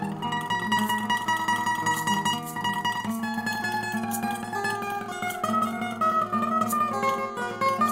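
Acoustic guitar playing an instrumental passage of picked notes.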